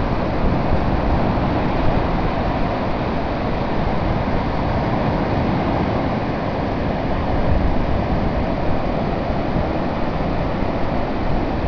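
Rough surf breaking and washing up a sandy beach: a loud, steady rushing with no let-up. Wind rumbles on the microphone underneath.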